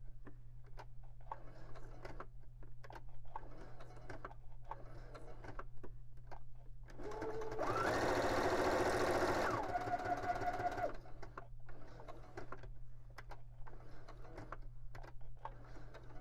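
Electric sewing machine stitching through a paper card, with faint scattered clicks between runs. About seven seconds in it sews a continuous run of about four seconds: the motor whine climbs and holds, drops to a lower pitch near the end, then stops. A steady low hum lies underneath.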